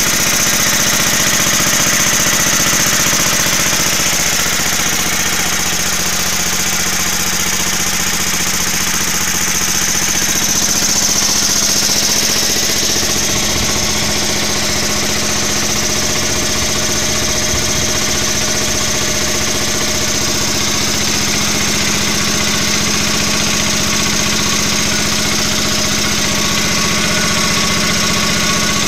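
16 HP Briggs & Stratton single-cylinder, cast-iron-bore engine running at a steady speed, driving a 4 kW, 1800 rpm generator.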